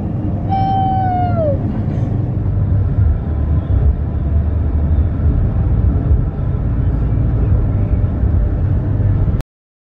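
Steady low road noise inside a moving car, with one drawn-out call falling in pitch, about a second long, about half a second in. The sound cuts off suddenly near the end.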